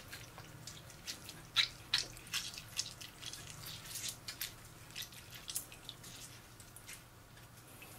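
Water splashing and dripping back into a metal bowl as blanched spinach is lifted out of its ice-water bath and squeezed by hand. Quick drips and small splashes come thickest through the middle and thin out near the end.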